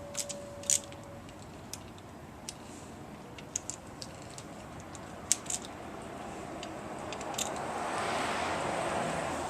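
Scattered small metallic clicks and taps of hand tools and parts being handled in a car's engine bay. A broad rushing noise swells up over the last few seconds and then fades.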